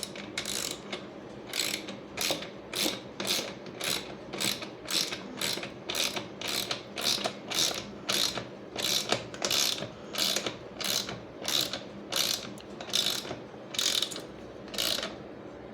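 DeWalt hand ratchet from the DWMT73803 mechanics kit being swung back and forth to tighten a fastener, its pawl clicking in short bursts about twice a second.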